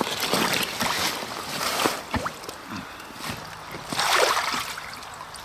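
Muddy water sloshing and splashing in a wet dig pit, in a few irregular bouts, the loudest about four seconds in.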